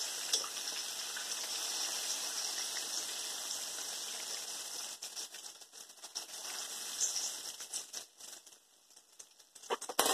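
Flour-battered bacon frying in a pan of hot oil: a steady sizzle that thins out about halfway through into scattered crackles and pops.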